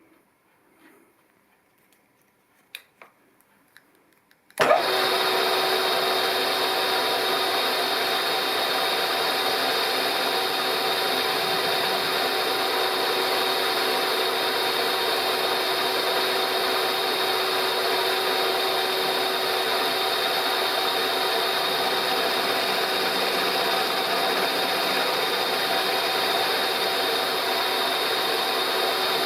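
A few faint clicks, then about four and a half seconds in a milling machine switches on and its spindle runs steadily with a fixed whine, driving a slitting-saw type cutter.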